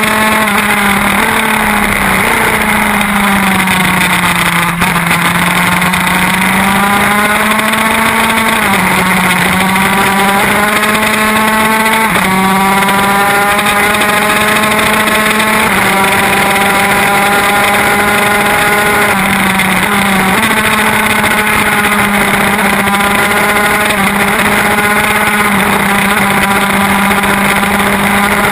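Racing motorcycle's high-revving engine heard from onboard at speed. The engine pitch climbs and then drops suddenly several times as it shifts up through the gears, and falls more slowly when slowing for corners.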